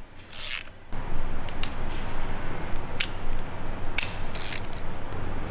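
A socket ratchet clicking briefly, then sharp metallic clinks of sockets and tools being handled, over a steady background noise that begins about a second in.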